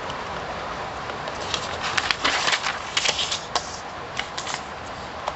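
Sheets of paper being handled and turned over: a couple of seconds of crisp rustling and crackling about a second in, then a few light ticks, over a steady background hiss.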